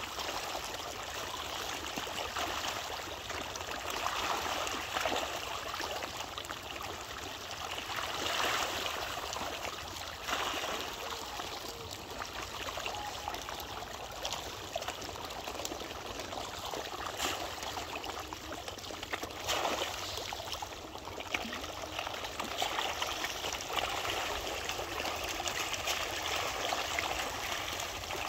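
Shoal of fish thrashing and splashing in shallow water: a continuous churning wash of water with frequent small splashes standing out here and there.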